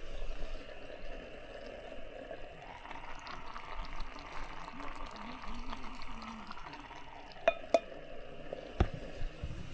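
Food cooking over heat at a camp meal: a steady simmering hiss, with two light ringing clinks about seven and a half seconds in and a knock shortly after.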